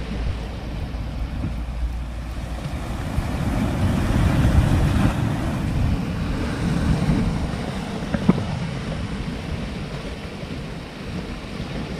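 Sea waves washing over shore rocks, with wind buffeting the microphone; the surge swells a few seconds in and again about seven seconds in, and there is one short click near the end.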